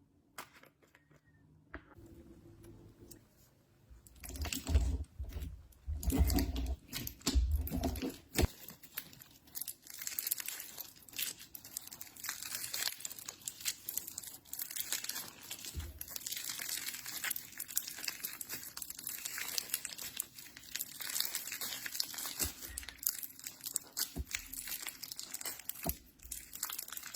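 Slime being squeezed and pulled apart by hand, giving a dense run of crackling and popping that starts about four seconds in, with some low thuds in the first few seconds of it.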